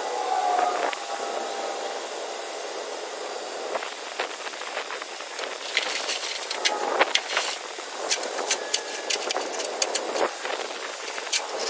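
Steady outdoor hiss, with a brief falling whine at the start. From about six seconds in come many sharp metallic clinks and rattles of a steel tie-down chain being handled on the trailer deck.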